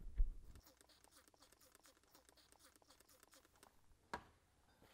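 Faint handling noise: a short low knock in the first half-second as the mechanical seal's stationary seat is pressed by hand into the pump's cast rear cover, then near silence broken by one short click about four seconds in.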